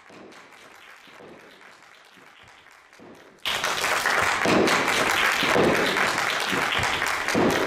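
A faint background hiss, then, about three and a half seconds in, loud applause starts abruptly: a small group of people clapping by hand.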